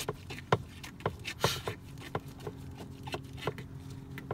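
Irregular sharp clicks, a few a second, from a hand screwdriver and screws working at the plastic glove box frame as the frame's screws are put back in, with a low steady hum underneath.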